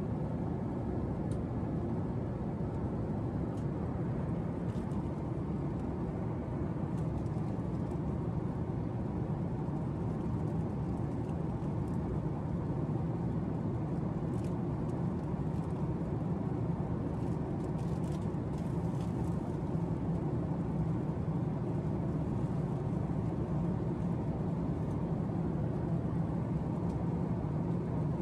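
Steady cabin drone of a Boeing 767-400 in cruise: engine and airflow noise, heaviest in the low range, with a few faint light ticks here and there.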